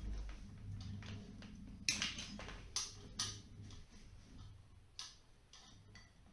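Scattered sharp clicks and snaps of hand work on electrical wiring, the loudest about two to three seconds in, over a low steady hum.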